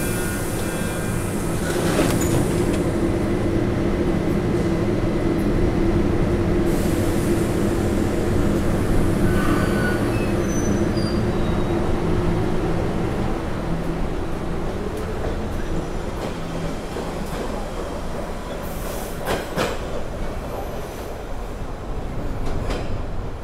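MBTA Orange Line subway train pulling out of the station: a steady electric motor hum with the rumble of wheels on rail, and a brief high wheel squeal about ten seconds in. The hum fades as the train draws away, with a few knocks near the end.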